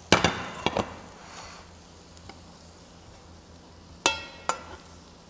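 A metal spoon knocking and clinking against a frying pan and a ceramic plate as gnocchi are served out: a quick cluster of knocks at the start, then two ringing clinks about four seconds in.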